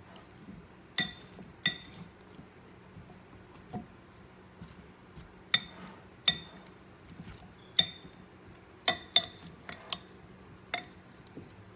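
Metal spoon clinking against a glass mixing bowl while tossing salad, about ten sharp, irregular clinks, some with a brief glassy ring.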